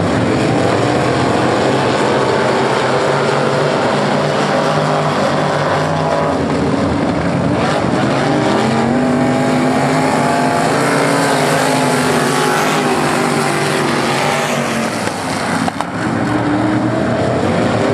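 Several non-winged dirt-track sprint cars racing, their V8 engines rising and falling in pitch as the cars pass through the turns and down the straight.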